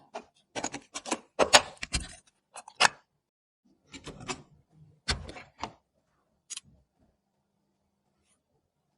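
Hard plastic and metal PC parts being handled and fitted by hand: a run of irregular clicks, taps and knocks with brief rustling, stopping about seven seconds in.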